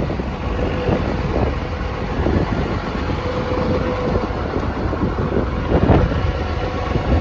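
Wind buffeting the microphone in irregular gusts, over a steady low rumble.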